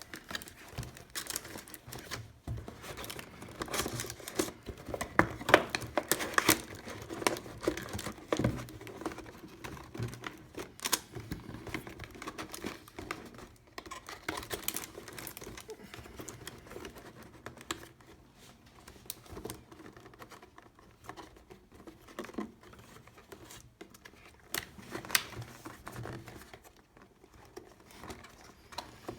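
Packaging crinkling and rustling with irregular clicks and knocks as a headset is worked out of its box; the handling is busiest in the first half and quieter later.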